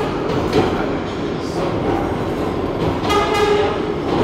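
New York City subway 7 express train running into an underground station, heard from inside the car: a steady rumble and rattle of wheels on the track. About three seconds in, a short high tone with several overtones sounds over it for about half a second.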